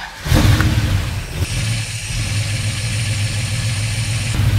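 Freshly rebuilt Pontiac 400 V8, stroked to 470 cubic inches, firing for the first time. It catches with a loud burst just after the start and settles into a steady idle.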